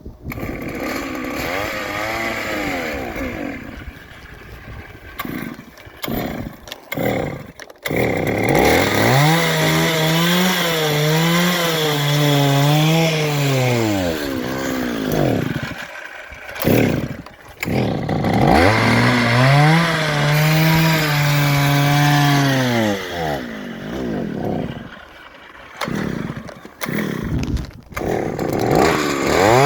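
Small gas engine running rough, surging up and down in pitch and cutting out several times before picking up again. The owner takes this for the engine getting too much gas.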